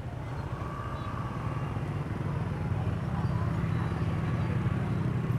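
Motorbike engines running steadily in slow market-street traffic, getting louder about halfway through, with people's voices in the background.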